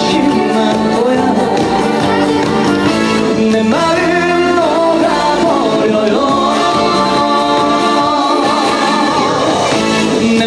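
Live trot music through a stage sound system: a lead melody that glides between notes over a steady band accompaniment.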